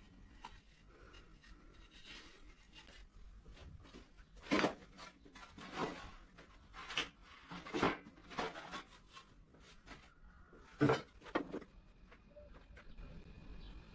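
Wooden boards and door parts being handled and set down on a table saw's metal top: several separate wooden knocks and clatters, the sharpest one near the end.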